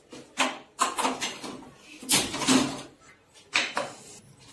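Steel kitchen vessels being handled: a few short clattering knocks and scrapes, the loudest about two seconds in.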